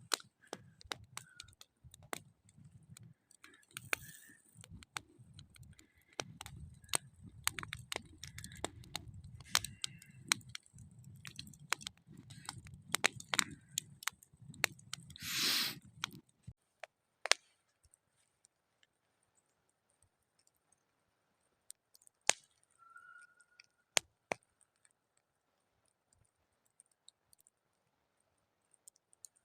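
Wood campfire crackling, with scattered sharp pops and snaps. Low wind rumble on the microphone runs through the first half and drops away about halfway, just after a short rushing noise, leaving only the occasional crackle.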